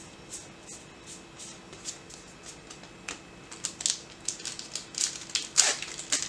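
MetaZoo trading cards slid one behind another in the hand, a soft tick about three times a second, then from about halfway through louder, denser crackling clicks as a foil booster pack wrapper is handled.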